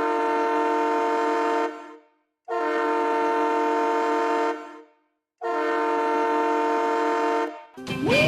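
Hockey arena goal horn sounding three long blasts of about two seconds each, separated by short gaps, each a steady chord of several tones. The goal song music kicks in just before the end.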